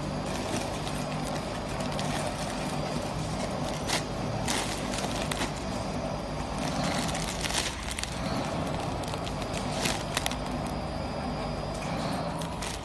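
ATM 420W automatic chips weighing and packing machine running with a steady hum, overlaid with irregular sharp clicks and the crinkle of filled plastic bags knocking together on its rotary collecting table.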